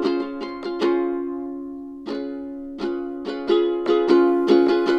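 Background music: chords strummed on a plucked string instrument, a quick run of strums, then one chord left ringing for about a second, then steady strumming again.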